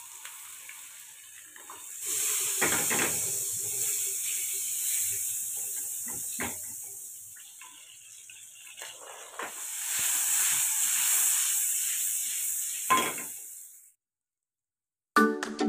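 Hot fat sizzling and hissing in a stainless steel frying pan as whole spices fry for a tadka (tempering). The sizzle swells twice, with a few light clinks of metal; a louder clink comes just before the sizzle cuts off near the end.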